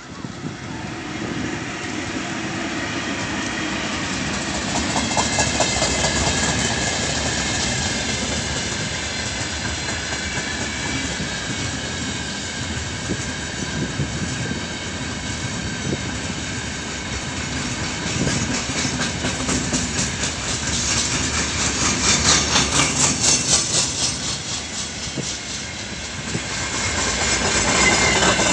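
Freight train of open-top gondola wagons rolling past at speed behind a 3ES5K 'Ermak' electric locomotive: a steady rumble of steel wheels on rail with clickety-clack as the bogies cross the rail joints, coming in quick runs of clicks that swell and fade as groups of wagons go by.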